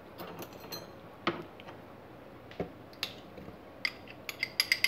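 Hands working at a plastic food processor's bowl and lid: a few separate light clicks and taps, then a quick run of ratcheting plastic clicks near the end as the lid is handled. The motor is not running.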